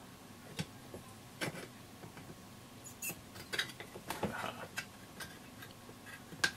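Soldering iron tip and fingers tapping and scraping against a small metal-cased IF module while its soldered can is worked free: light, irregular clicks and ticks, a few seconds apart, with a small cluster in the middle.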